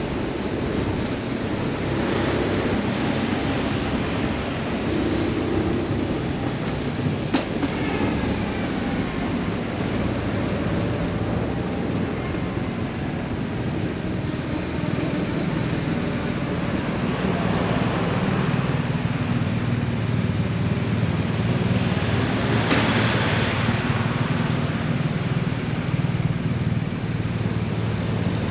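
BMW R 1150 RS flat-twin boxer engine running at low road speed, its note shifting a little with the throttle, over road noise. A single sharp click comes about seven seconds in, and a short rush of noise about three-quarters of the way through.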